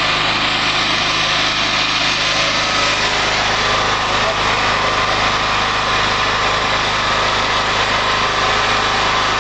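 Volvo Viking army truck's diesel engine running steadily at an unchanging level.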